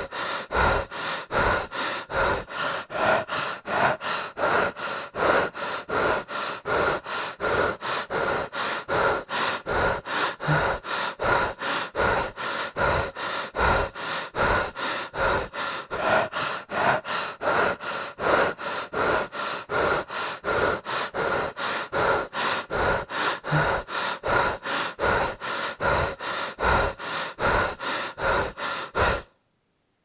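A person breathing fast and heavily, out of breath, with rapid, even breaths in and out like hyperventilating. The breathing cuts off abruptly near the end.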